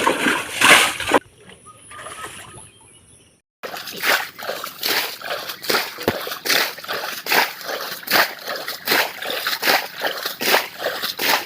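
Water being bailed out of a shallow, nearly drained pond, with quick repeated splashes about two to three a second. The splashing stops briefly about a second in and resumes.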